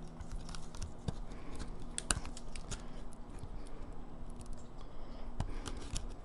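Fingernails clicking and scraping on small plastic cable connectors inside a laptop, worked at to free them. The sharpest clicks come about two seconds in and again past five seconds.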